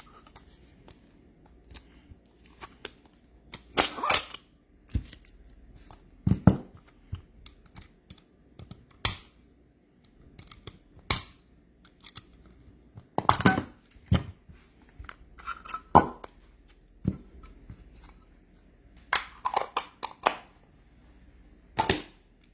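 Irregular sharp clicks and taps, about a dozen spread across the stretch, from trading card packs and metal cards being handled and set down on a table.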